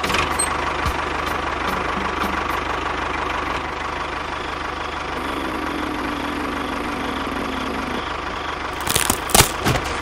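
Tractor engine running steadily at idle. Several sharp knocks or cracks come about nine seconds in.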